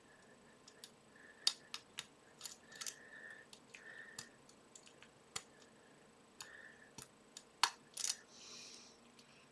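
Faint, irregular small metal clicks and short scrapes from a lock pick and tension wrench working the pins of a five-pin pin-tumbler lock, with a few sharper clicks.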